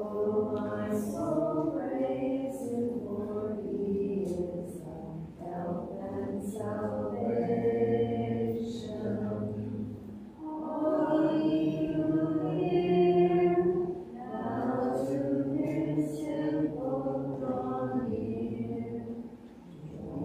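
Congregation singing a hymn together without accompaniment, in long sustained phrases with brief pauses between them.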